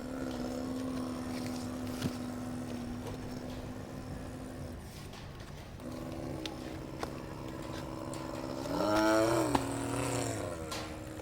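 Radio-controlled model excavator's motor and hydraulic pump whining steadily, with a few light clicks. It stops briefly near the middle, then starts again and rises and falls in pitch near the end.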